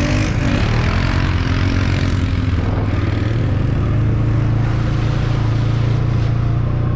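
Kawasaki Mule Pro-MX side-by-side's single-cylinder engine running steadily as the machine drives along, heard from the driver's seat. The engine note firms up and climbs slightly a few seconds in.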